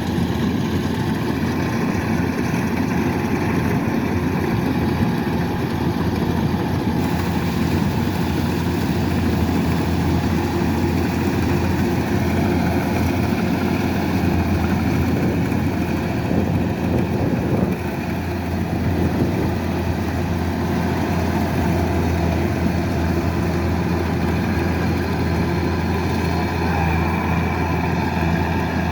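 Kubota DC-108X combine harvester's diesel engine running steadily under load, with a brief dip in level about 18 seconds in.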